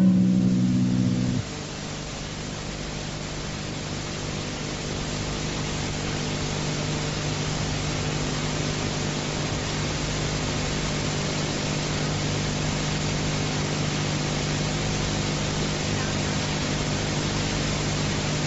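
The title music ends on a held chord that cuts off about a second and a half in. After that there is a steady hiss with a low hum under it, slowly getting a little louder.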